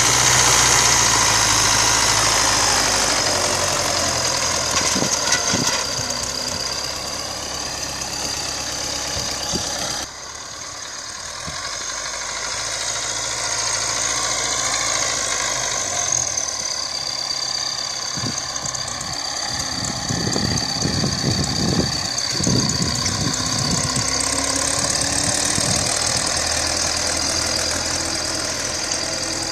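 MTZ-82 tractor's four-cylinder diesel running steadily as it pulls a spring-tine cultivator through tilled soil. It is loud at first, drops suddenly about a third of the way in, then grows louder again as the tractor comes back close.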